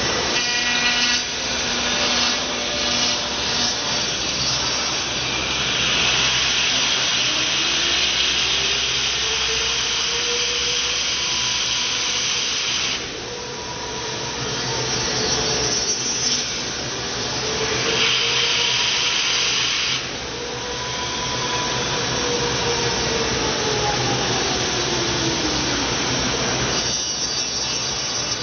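CNC router cutting wood: a continuous noise of the spinning bit working through the wood, with a faint motor tone that slowly rises and falls twice.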